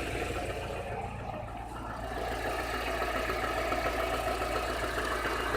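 Chevrolet Niva four-cylinder petrol engine running with a knock that is getting worse, which the owner suspects comes from the bottom end. The engine sound eases about a second in and picks up again around two seconds in.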